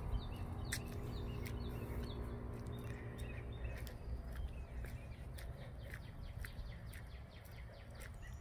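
Outdoor ambience: birds chirping in short, quick downward notes, over a low rumble of wind on the microphone, with scattered light clicks.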